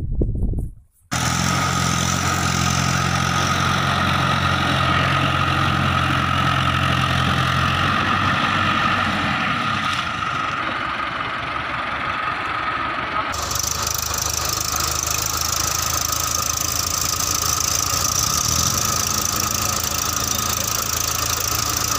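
Mahindra Arjun Ultra-1 555 DI tractor's diesel engine running steadily while the tractor tows a second tractor out of deep paddy-field mud. The engine sound cuts in abruptly about a second in.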